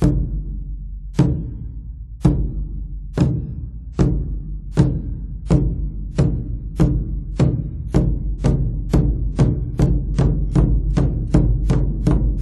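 Percussion music: single sharp strikes over a steady low drone, starting about a second apart and speeding up steadily until several come each second.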